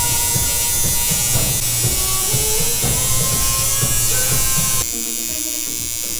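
Tattoo machine buzzing steadily as it needles skin. Background music plays over it until about five seconds in, when the music cuts out and the buzz carries on alone.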